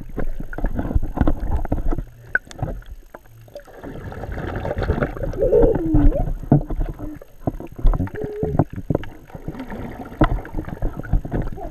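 Water splashing and sloshing around a GoPro in its waterproof housing held at the surface while snorkeling, with irregular knocks and swishes as the camera moves through the water. A brief falling tone sounds about halfway through.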